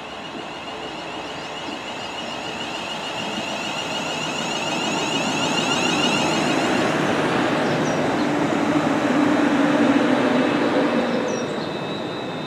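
A Class 350 Desiro electric multiple unit pulls into the platform. Its traction motors whine high at first, then the running noise grows louder, with a low hum about eight to eleven seconds in, and eases near the end.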